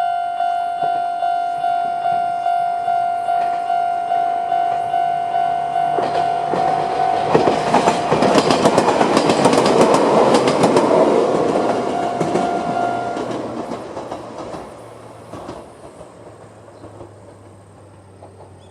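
Japanese level-crossing alarm sounding its old-type electronic tone at a fast tempo, about two and a half beeps a second, while a Chichibu Railway 7800-series electric train passes with rhythmic wheel clatter, loudest about eight to eleven seconds in. The alarm stops about thirteen seconds in and the train's sound fades away.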